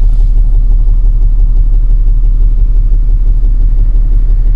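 Toyota Land Cruiser 1HD-FT straight-six turbodiesel idling low and rough, shaking and misfiring. The mechanic traces the misfire to cylinder three, whose injector pipe shows no diesel pulse.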